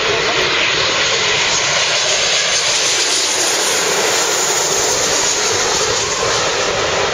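Embraer E-190 jet airliner passing low overhead on final approach with its landing gear down, the noise of its two GE CF34 turbofans loud and steady throughout.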